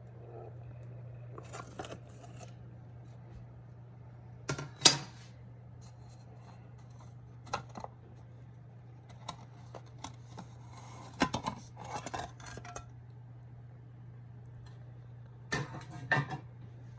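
Scattered clicks and clatters of small hard objects being handled, the loudest about five seconds in and a cluster near the end, over a steady low hum.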